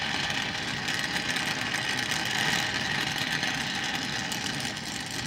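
Oxy-fuel gas welding torch flame hissing steadily, turned up to a hotter flame to melt the edges of a cracked muffler.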